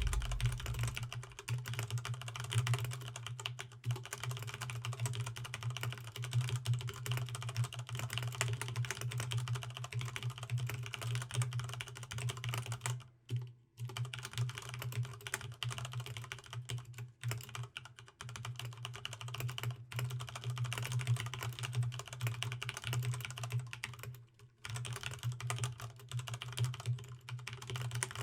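Continuous fast typing on a Corsair STRAFE RGB MK.2 mechanical keyboard with linear Cherry MX Red switches (the non-silent version), a dense run of key clicks and clacks with two short breaks, one about halfway and one near the end. A steady low hum lies underneath.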